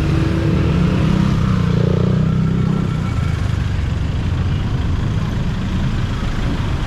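Motor vehicle engine running close by, loudest for the first three seconds and then steadier, over street noise.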